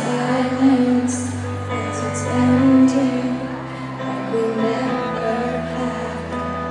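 Live pop concert music: a song with singing over held bass notes that shift pitch a couple of times.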